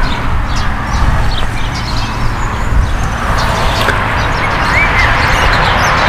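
Outdoor ambience: a steady low rumble of wind buffeting the microphone, with birds chirping. One short chirp stands out nearly five seconds in.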